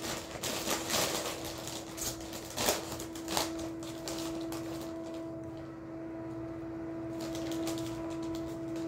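Crinkling of a Wise Honey BBQ potato-chip bag as it is opened and reached into, dense and crackly for the first three seconds or so, then dying away. A steady hum sits underneath throughout.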